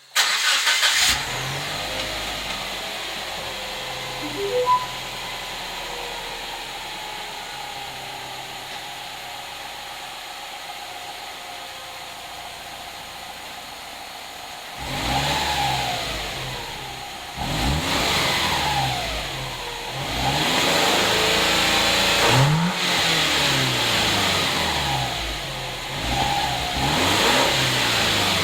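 Subaru GH Impreza's flat-four engine heard through its stock muffler: it starts with a sudden loud burst at the beginning, settles into a steady idle for about fifteen seconds, then is revved up and let fall back several times.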